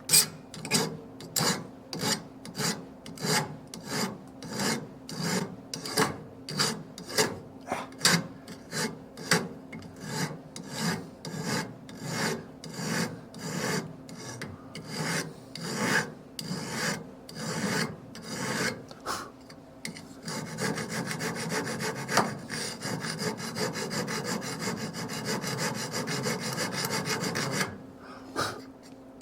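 Hand file rasping across the welded joint of a steel bandsaw blade to dress the weld flush, in regular strokes about one and a half a second. About twenty seconds in it changes to a steady, unbroken rasp that stops shortly before the end.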